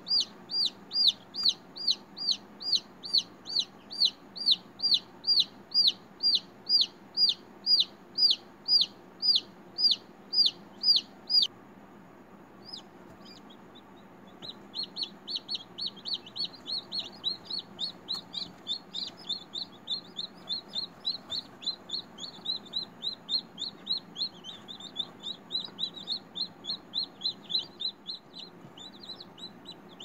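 Newly hatched chicken chick peeping: loud, even peeps about two a second, each falling in pitch, that break off about eleven seconds in. After a short pause, softer and quicker peeping carries on.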